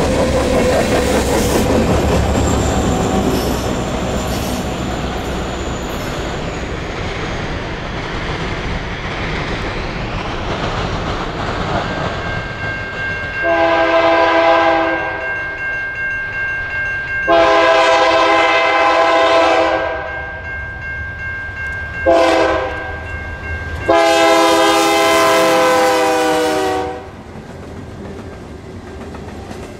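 Freight cars rumbling and clattering past, fading over the first dozen seconds. Then a BNSF GE Dash 9-44CW locomotive's multi-chime air horn sounds four blasts, long, long, short, long, the grade-crossing warning pattern, as the train approaches.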